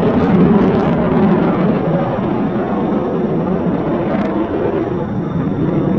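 Sukhoi Su-35 fighter in flight, its twin AL-41F1S turbofan engines giving a steady, deep jet rumble.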